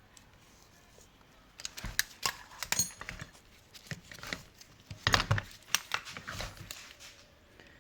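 Metal parts clinking and clattering: a run of irregular knocks and rattles that starts a second or so in and dies away near the end.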